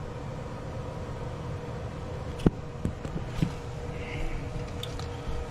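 Toilet tank refilling after a flush, a steady faint hum of water through the fill valve, with a sharp click about two and a half seconds in and a couple of light knocks soon after.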